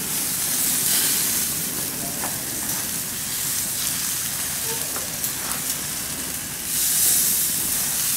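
Black grouper fillets sizzling on a hot grill grate as the pieces are laid down. The sizzle swells about a second in and again near the end.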